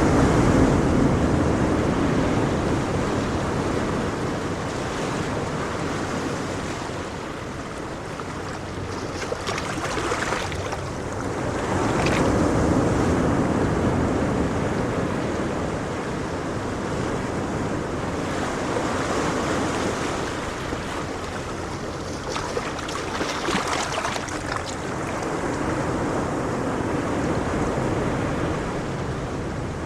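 Gentle ocean waves washing on the shore, a steady rushing surf that swells and ebbs every several seconds, with some wind noise.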